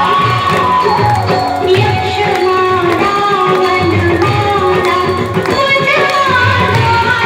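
Loud Indian song with a melodic vocal line over a steady drum beat.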